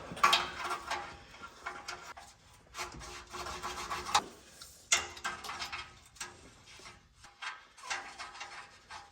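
Irregular rubbing and scraping with scattered clicks and knocks, as of hands and tools handling parts under a car.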